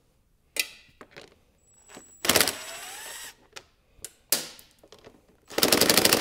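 Cordless electric impact driver backing out plastic-panel fasteners in a few short trigger bursts: a brief spin, a longer whirring run near the middle, and a loud burst of rapid hammering near the end as it impacts a fastener loose.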